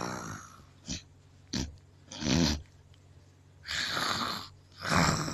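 A person snoring loudly in a run of short, rattling bursts, about six in all, the loudest about halfway through.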